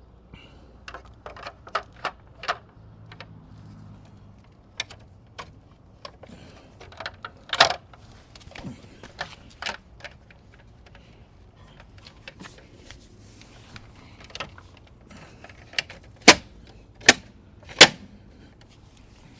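Plastic wheel skin being fitted over an alloy car wheel: scattered clicks and taps of plastic against the rim, with three loud clicks in quick succession near the end as it is pressed into place.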